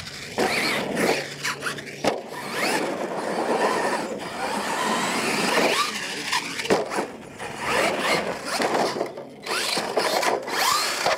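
R/C monster truck motors whining, the pitch sweeping up and down again and again as the throttle is worked, mixed with tyres scrabbling on loose dirt. A few sharp knocks come from the trucks hitting the ramp and ground.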